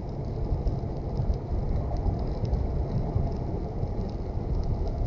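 Car driving on a wet highway in the rain: a steady low rumble of road and tyre noise, with faint scattered ticks of raindrops.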